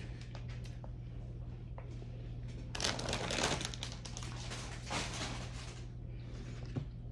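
Close-up eating sounds: a bite into a cheeseburger with crisp lettuce, crunching and chewing loudly about three seconds in and again briefly around five seconds, over a steady low hum.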